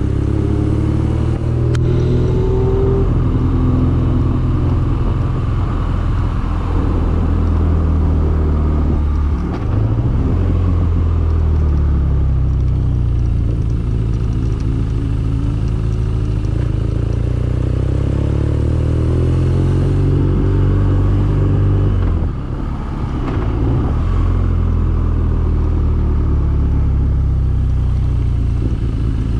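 BMW R nineT's air/oil-cooled boxer twin engine running on the move, its pitch rising and falling with the throttle. The sound dips briefly twice, about ten and twenty-two seconds in, as it changes gear.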